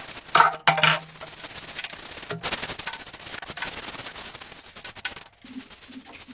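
Cleaning scrub: a surface rubbed in rapid, repeated strokes, with a couple of louder knocks about half a second in. Near the end the strokes give way to a low pulsing sound.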